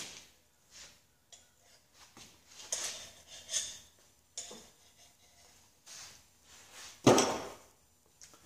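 Metal tools and parts being handled while a machine is set up: scattered clinks and clatter, with one heavier clunk about seven seconds in.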